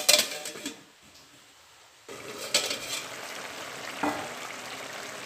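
A sharp metal clank on the aluminium pot with a brief ring, then about two seconds in the curry starts boiling in the pot with a steady bubbling hiss, broken by a few light clinks.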